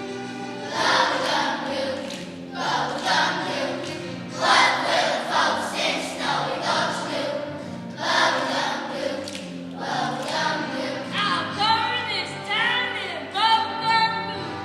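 Children's choir singing a song over instrumental accompaniment, in phrases that break off and start again every second or two.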